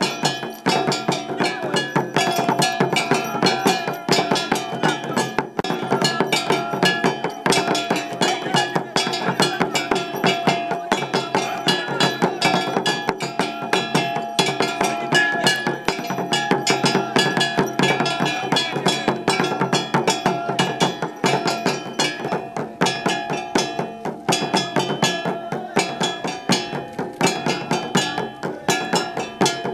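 Dogon mask-dance percussion: fast, dense drumming with clacking, cowbell-like metal strokes, played without a break.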